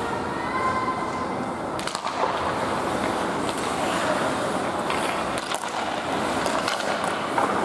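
Ice hockey skates scraping and carving on rink ice as young players skate after a faceoff, with sticks clacking against the puck and ice about two seconds in and again around five seconds.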